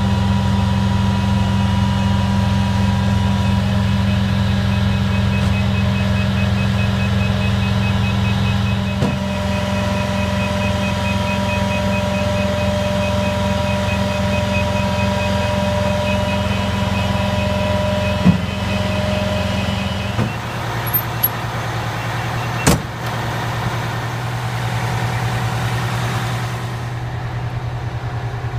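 The fire truck's Detroit diesel engine running steadily at idle, its note shifting about two-thirds of the way through, with a rapid high beeping over it for most of that time and a few sharp knocks.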